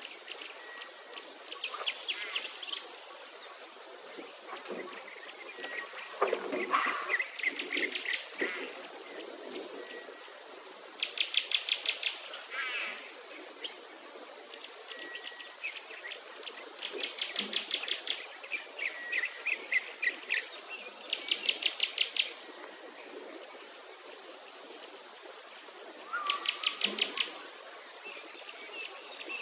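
Birds calling: rapid high trills about a second long, repeated every few seconds, over a faint high-pitched insect buzz that pulses on and off steadily.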